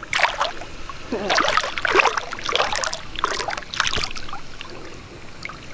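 Peacock bass thrashing in shallow water while held for release, giving four or five irregular splashes: the fish has revived and is kicking to get away.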